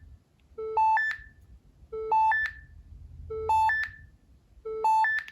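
Nokia 6790 Surge playing one of its built-in ringtones: a pattern of three quick beeps, each a step higher than the last, repeating about every second and a half, four times.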